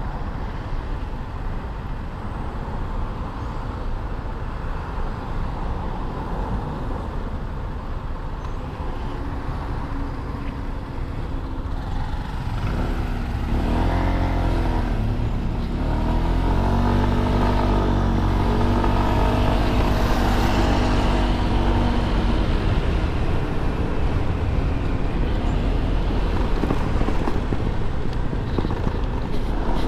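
Honda SH150i scooter's small single-cylinder engine running through city traffic, with road and wind noise. Around the middle the engine note rises and falls, and then it runs louder and steadier as the scooter picks up speed.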